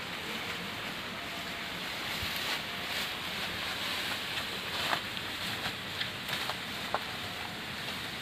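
Tall grass and brush rustling as people push through it on foot, with a few sharp snaps scattered through.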